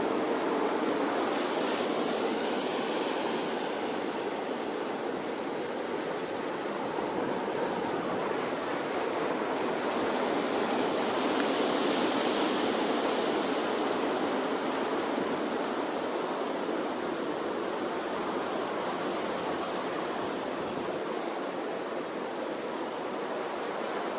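Gentle ocean waves washing onto a shore, a continuous wash of surf that swells slowly and eases.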